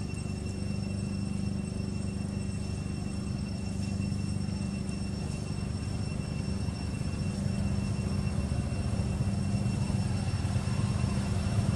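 Low, steady hum of a motor vehicle engine running, growing louder over the last few seconds, with faint steady high-pitched tones above it.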